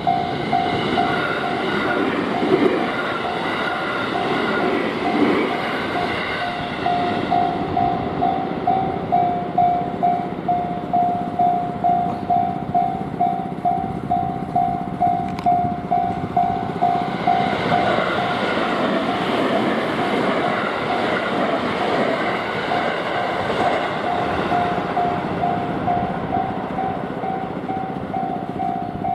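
Japanese level crossing's warning bell ringing steadily at about two strikes a second while electric trains pass: one train's rumble fills the first seven seconds, and a second train goes by from about 17 to 27 seconds in.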